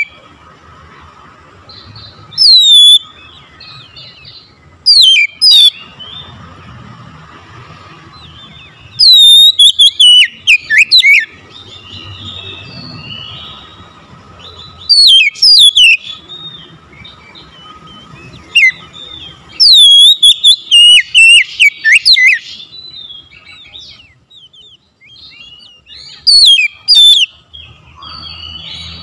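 Oriental magpie-robin (kacer) singing loud phrases of quick, high, sharply falling whistled notes. The phrases last one to two seconds each and come about seven times, with short pauses between them.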